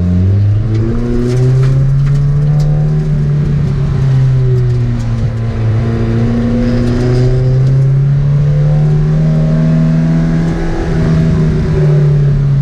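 Spec Miata race car's four-cylinder engine running hard on track, heard from inside the caged cabin. Its pitch holds high, dips slightly about five seconds in, then climbs again.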